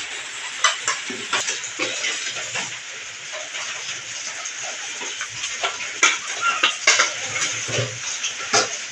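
Tap water running into a stainless steel sink, with ceramic plates and bowls clinking and clattering as they are rinsed and stacked; the sharpest clinks come in the second half.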